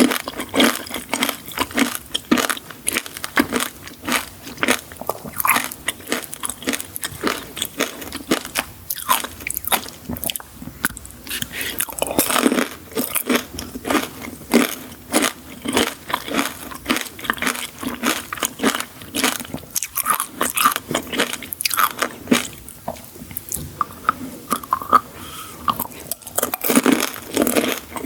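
A person biting and chewing crunchy sweets with many sharp, rapid crunches and no talking.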